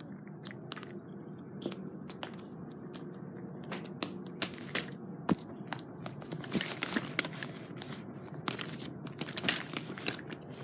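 Close-up handling noise: irregular rustling and crinkling with many small sharp clicks, busier in the second half, as things are fumbled with one hand.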